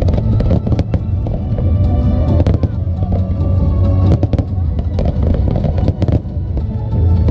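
Fireworks bursting in rapid, repeated sharp bangs and crackles, over loud show music with a heavy low bass.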